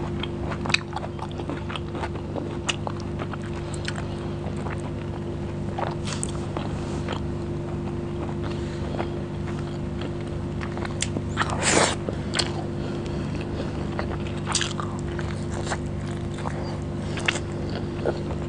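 Close-miked chewing and wet mouth sounds of a person eating biryani rice and curry by hand, with scattered smacks and clicks and a louder burst about two-thirds of the way in. A steady low hum runs underneath.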